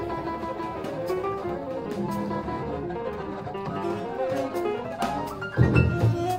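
Live jazz quartet of piano, alto saxophone, double bass and drum kit improvising, a busy run of quick short notes over light drum strokes. About five and a half seconds in comes a loud low thud.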